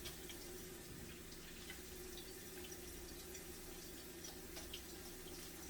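Kitchen tap running into the sink while hands are washed under it, a steady low rush of water with small scattered splashes.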